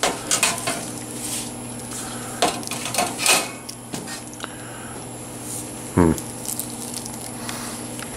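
Stainless steel deep fryer parts and a wire-mesh fry basket clanking and rattling as they are handled and fitted together: several sharp metallic knocks, clustered near the start and around three seconds in, with lighter rattles between.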